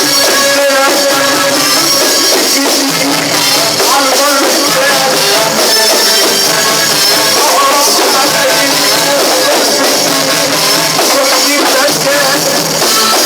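Loud live band music from a mawwal performance: a wavering, ornamented melody over steady hand percussion.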